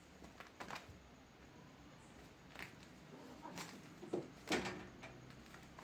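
A few faint, scattered knocks and taps, the loudest two close together about four seconds in.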